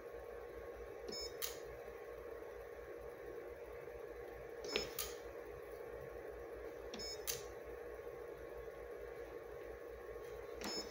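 Ultrasound scanner's controls clicking and beeping in three quick pairs a few seconds apart, over a steady hum.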